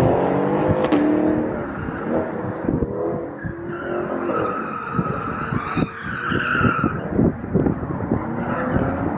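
Cars running an autocross course: engines revving up and down and tyres squealing through the corners, the squeal strongest in the middle.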